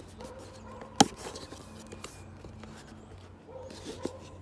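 A dog barking in the background, with a single sharp click about a second in from the package being worked open.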